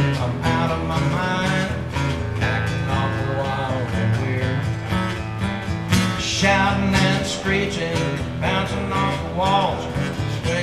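Guitar strummed in a country shuffle rhythm, with a man singing a line partway through.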